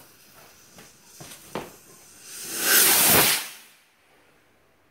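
A small consumer firework going off with a loud spraying hiss that swells up and dies away over about a second and a half, after a few sharp crackles.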